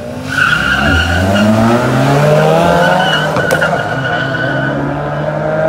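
Car launching hard with the clutch popped: the tires squeal for about four seconds while the engine's revs climb as it accelerates away.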